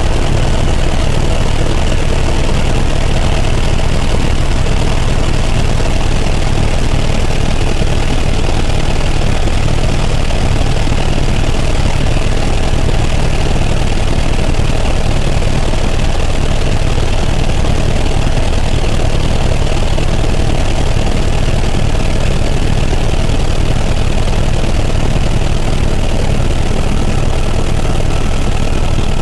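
Helicopter in flight: a steady, loud drone of turbine and rotor, heaviest at the low end, with a thin steady whine above it.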